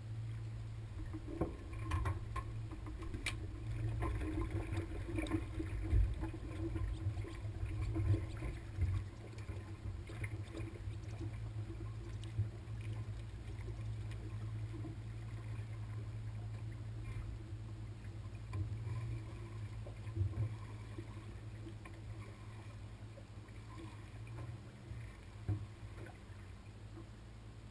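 A low steady engine rumble with a few sharp knocks and clunks in the first several seconds, as the drag boat comes off its trailer at the launch ramp.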